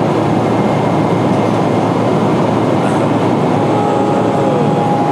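Steady roar of cabin noise inside a Boeing 777-300ER airliner in flight, engines and rushing air blended into an even rumble. A faint steady whine joins in about three and a half seconds in.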